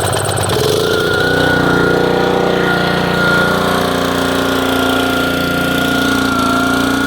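Gas-engine pressure washer running steadily. About a second in the sound changes and a steady high whine joins it. The pump is still drawing air out of a gravity-fed water supply.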